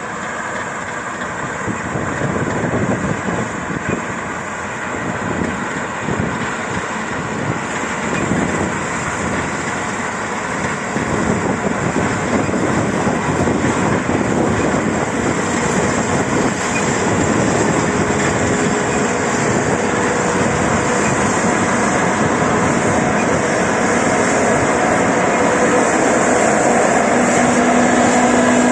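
Combine harvester running in the field: a loud, steady, dense machine noise that grows a little louder. A steady hum comes in over it near the end.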